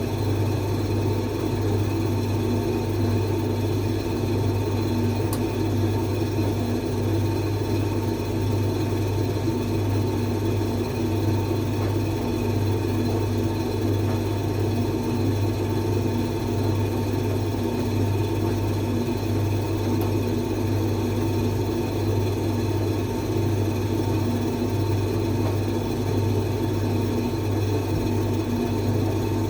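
Creda 37761 running with a steady low hum and whir, unchanged throughout: the noise fault its owner wants to fix.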